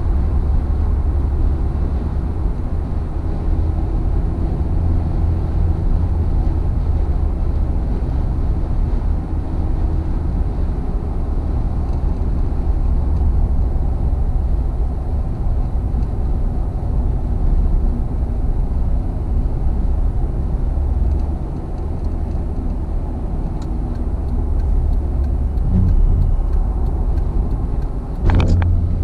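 Car interior noise at highway speed: a steady, low rumble of road and engine, with a brief louder thump near the end.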